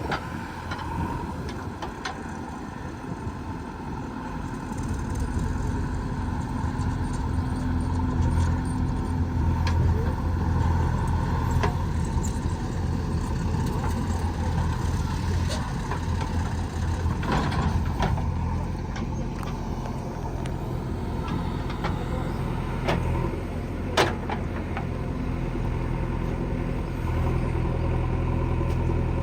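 Diesel engine of a JCB 3DX backhoe loader working, its low hum growing louder a few seconds in, with scattered knocks and one sharp click near the end.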